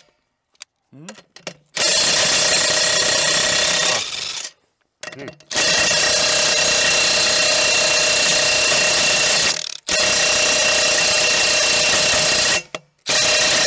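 Makita 18V 3/4-inch cordless impact wrench hammering at tight 30 mm tractor wheel nuts to break them loose. It runs in four long bursts with short stops between: the first starts about two seconds in and lasts about two seconds, and the later ones run several seconds each.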